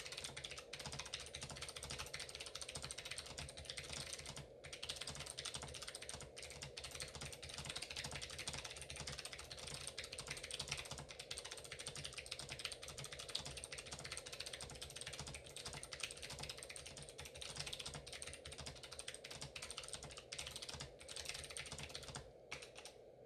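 Continuous fast typing on an N97 mechanical keyboard fitted with clicky Space Invaders switches and prototype custom springs, a dense run of key clicks with a brief pause about four and a half seconds in and another near the end.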